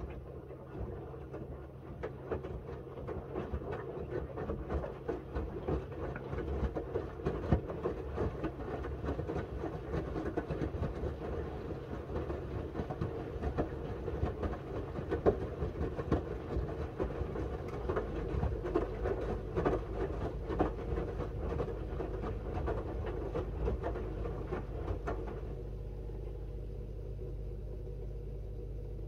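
Miele W1 front-loading washing machine in its wash cycle: the drum tumbles wet laundry with a steady motor hum and a continuous patter of small knocks and sloshing. Near the end the tumbling noise stops, leaving only a steady hum.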